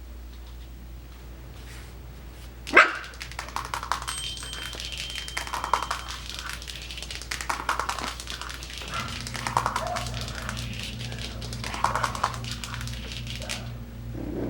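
Five-week-old Coton de Tulear puppies yipping and barking in play: one sharp yelp about three seconds in, then a short bark every couple of seconds, over a steady patter of small clicks and scuffles. A low hum runs underneath and starts to pulse about halfway through.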